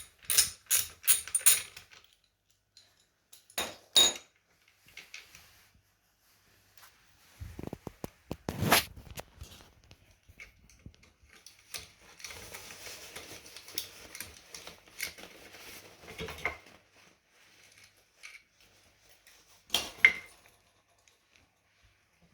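Scattered sharp metallic clinks and taps, a quick run of them at the start and a single loud knock a few seconds later, with a few seconds of rustling handling noise in between.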